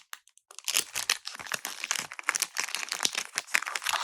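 Foil Pokémon card pack wrapper crinkling and rustling in the hands, a dense run of small crackles starting about half a second in.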